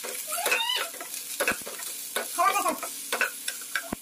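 Vegetables sizzling in hot ghee in a frying pan as they are sautéed, with a spatula stirring and clicking against the pan now and then.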